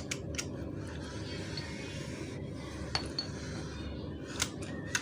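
Light metallic clicks and clinks from hands-on work on a car seat-belt retractor and its spring, about six scattered ticks with the sharpest about 3 and 4.5 seconds in, over a steady low background hum.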